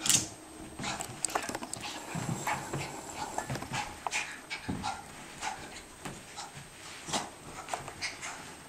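A dog panting as it thrashes about in a frenzy, with irregular clicks and thumps of its movement. It opens with one sharp knock, the loudest sound.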